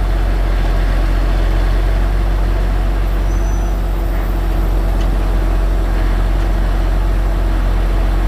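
Motor vehicle engine running steadily, a constant low hum.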